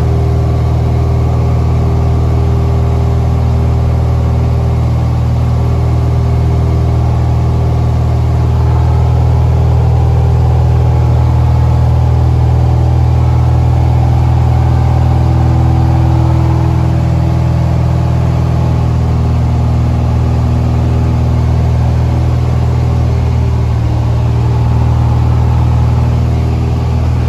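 Cessna light aircraft's single piston engine and propeller droning steadily in cruise, heard from inside the cockpit.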